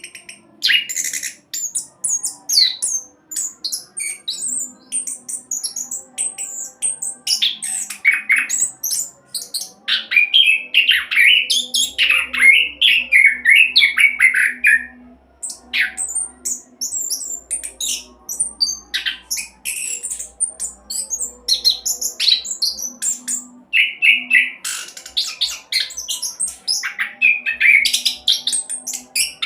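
Orange-headed thrush singing a fast, rolling song of rapid whistled and chattering phrases, run together almost without a break.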